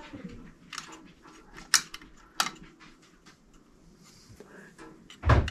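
Several sharp metallic clicks and taps from a screwdriver and wires against an aquastat relay's metal housing during rewiring, with one short, louder sound near the end.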